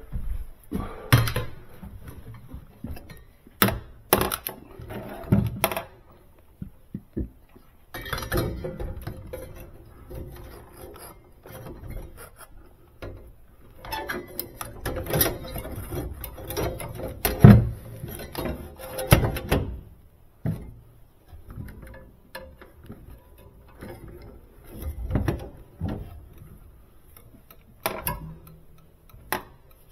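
Hands and tools working on a refrigerator condenser fan motor while its ground wire is connected: scattered clicks, knocks and small clatter of metal parts and hardware, with quieter stretches between and one louder knock a little past halfway.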